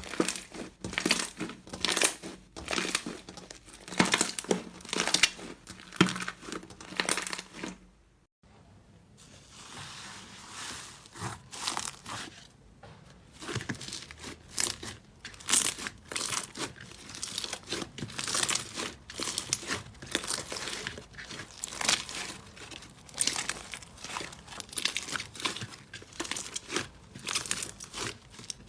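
Slime being squeezed, pressed and pulled by hand, giving dense crackling and popping clicks. The sound breaks off briefly about eight seconds in, then similar crackling resumes.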